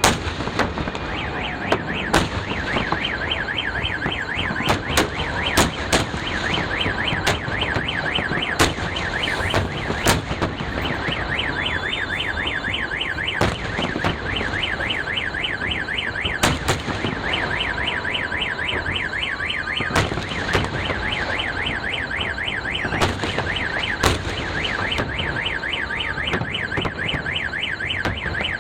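A car alarm warbling rapidly and continuously, with sharp firework bangs going off every few seconds over it.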